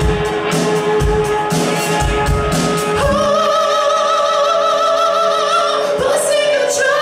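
Live rock trio playing electric guitar, bass and drum kit, with drum hits through the first few seconds and then a long held note that wavers in pitch from about three seconds in to about six.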